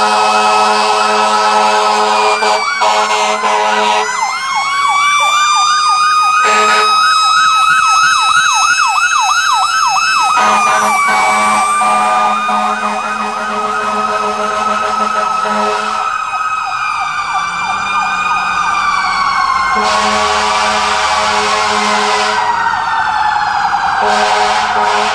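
Fire truck sirens sounding: a slow wail, switching to a fast yelp for several seconds, then back to the wail. Over it, loud steady multi-tone air-horn blasts start and stop several times. A siren winds down in pitch near the end.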